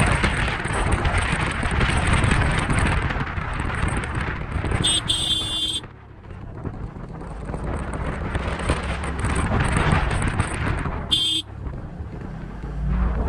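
Scooter riding along a road: the small engine running with wind rushing over the microphone. Two short horn beeps sound, one about halfway through and a shorter one near the end.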